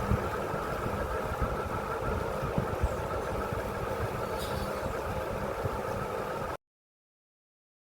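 Ceiling fan running with a steady whir and a low motor hum. It cuts off abruptly to silence about six and a half seconds in.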